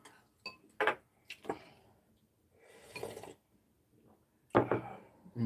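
Chopsticks clicking against ceramic bowls during a meal, with a few sharp clicks in the first second and a half. Near the end a bowl knocks down on the wooden table, the loudest sound.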